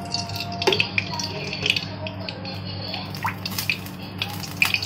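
Cooking oil poured in a thin stream into a kadhai, trickling and splashing into the pan, with a few sharp ticks over a steady low hum.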